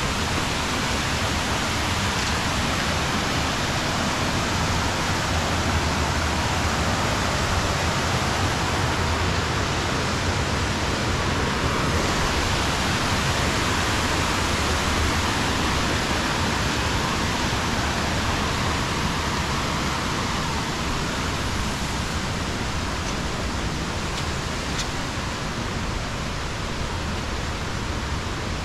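Steady rushing of a waterfall cascading over stepped rock ledges in a gorge.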